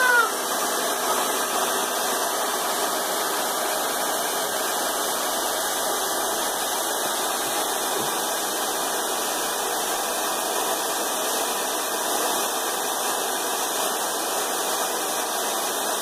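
Hair dryer running steadily: a continuous, even rush of air from its fan, with no change in pitch or level.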